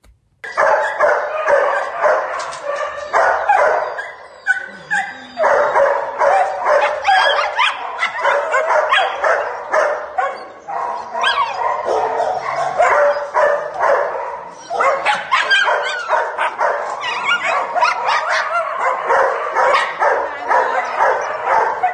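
Several dogs barking and yapping at once in shelter kennel pens. The barks overlap almost without a break, easing briefly a few seconds in and again past the middle.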